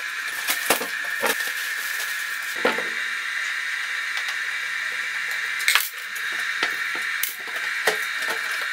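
Scattered light clinks and knocks of hand work at a wall panel: a screw being taken out and a plasterboard panel being worked loose, over a steady hiss.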